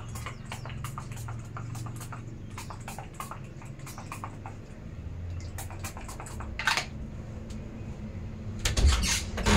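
Light clicks and taps of toiletry bottles being handled over a low steady hum, with a short hiss of body splash being sprayed about two-thirds of the way in and a louder bump near the end.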